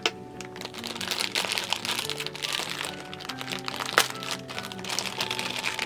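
A clear plastic packaging bag crinkling as it is handled and opened, with a sharp crack about four seconds in, over background music.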